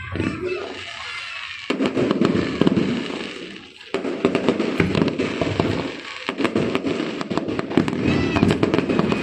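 Fireworks going off: a dense run of sharp cracks and pops over a continuous rumble of bursts, dropping away briefly about four seconds in and then resuming.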